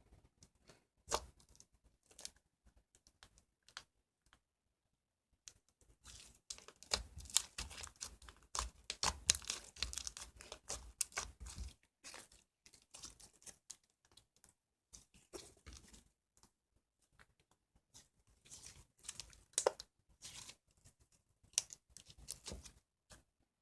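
Green Elmer's-glue slime being worked by hand, giving sharp crackling, tearing and popping clicks. There are scattered clicks at first, a busy six-second run of crackling in the middle, then another cluster near the end.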